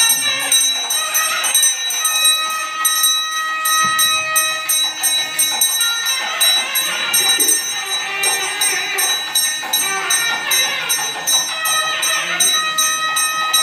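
Temple bells rung rapidly and continuously, about four strokes a second, their ringing tones held over background music.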